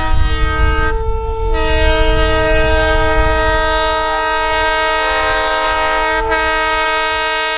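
Diesel locomotive's multi-chime air horn sounding a chord of several notes: a short blast that breaks off about a second in, then a long held blast, over a low rumble.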